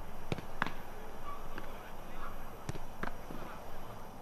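Footballs being struck and caught in a goalkeeper drill: two pairs of sharp thuds. In each pair the ball is hit, then lands in gloved hands about a third of a second later.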